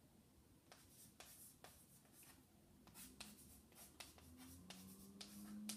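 Chalk writing on a blackboard: a string of faint, irregular taps and scratches as the chalk strokes out letters.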